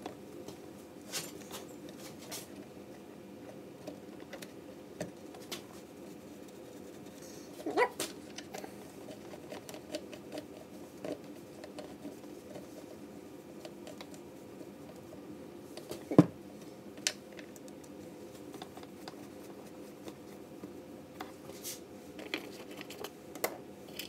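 Small clicks, taps and light rattles of metal parts and tools handled at a chainsaw's carburetor and linkage, over a steady low hum. A sharper knock comes about eight seconds in, and the loudest one about sixteen seconds in.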